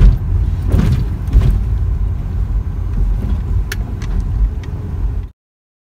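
Cabin noise of a Proton Waja 1.6 rolling slowly: a steady low engine and road rumble with a few sharp knocks, cutting off suddenly about five seconds in.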